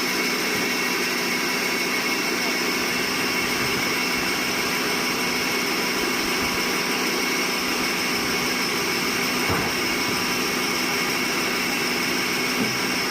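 Sawmill machinery running steadily, a constant mechanical drone with a steady hum and whine.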